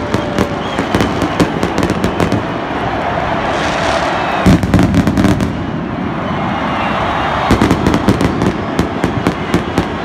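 Firecrackers going off in rapid strings of sharp bangs over stadium crowd noise, the bangs coming thickest near the start and again past the middle.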